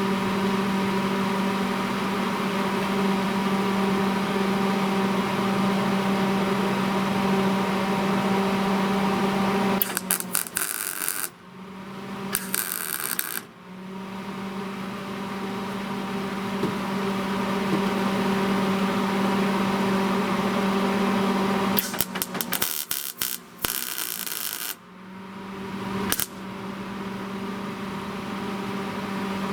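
Steady machine hum, broken twice, about ten and twenty-two seconds in, by a few seconds of crackling, sputtering MIG welding arc.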